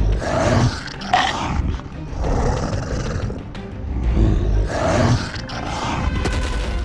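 Two drawn-out dinosaur roars, voicing a toy T. rex. The first comes at the start and the second about four seconds in, over steady background music.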